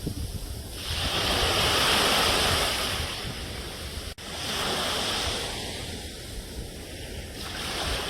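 Ocean waves washing onto the shore, surging and receding in swells about every three to four seconds, with a brief dropout about halfway through.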